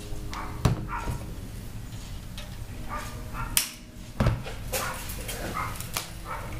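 Handling noises of an electric guitar being restrung: sharp knocks and clatter of strings and tools at the headstock, three of them standing out, with several short high whines in between.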